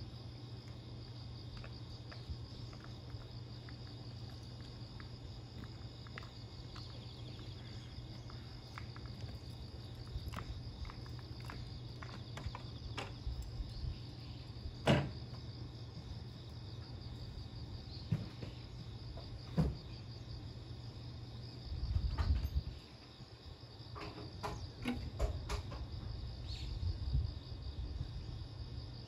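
Insects, crickets, chirping steadily in a high band over the low steady hum of a stopped electric train standing at the platform with its doors open. A few scattered clicks and knocks, with a brief low rumble about two-thirds of the way in.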